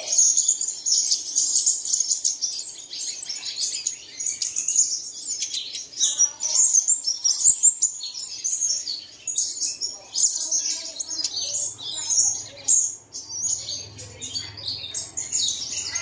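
Sunbird chirping: a fast, continuous string of short, high twittering notes with only brief gaps.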